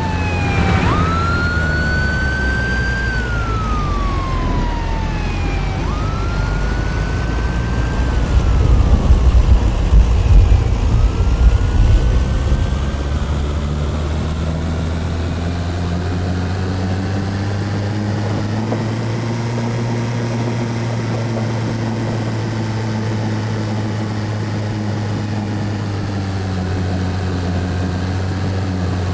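Emergency vehicle siren wailing in rising and slowly falling sweeps over the first dozen seconds, then fading. A vehicle engine hums steadily underneath, with a louder rushing stretch near the middle.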